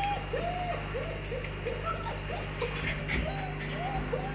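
White Swiss Shepherd dogs whimpering: a quick series of short whines, each rising and falling in pitch, about three a second, mixed with thin high squeaks.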